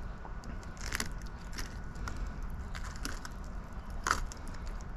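Knife working along a longnose gar's tough, scaly skin while filleting, giving scattered clicks and crunches, the sharpest about four seconds in.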